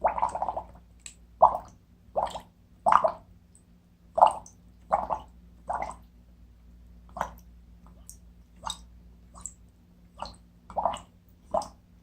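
Slime worked by hand for foley, giving a series of short wet squelches and bubbly pops, roughly one or two a second and uneven in strength.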